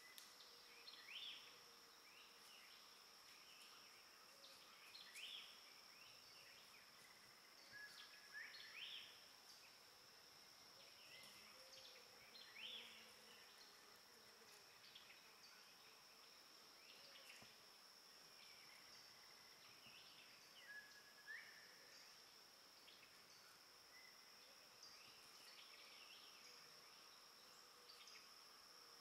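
Faint woodland ambience: a steady high-pitched insect drone, with short rising bird chirps every few seconds.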